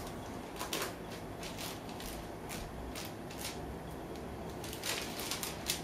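A steady low hum with irregular light clicks and ticks, a quick cluster of them near the end.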